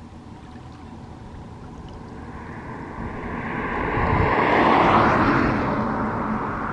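A motor vehicle passing by, swelling to its loudest about five seconds in and then fading as its pitch drops.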